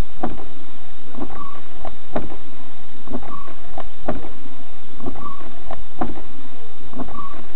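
A car's windshield wiper still cycling on the damaged car, repeating about every two seconds: a few knocks at each stroke and a short squeak of the blade across the glass.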